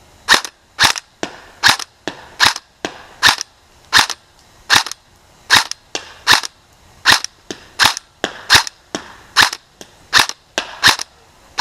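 Custom Magpul airsoft M4, a battery-powered electric gun, firing single shots on semi-auto: about fifteen sharp shots, one every half second to second.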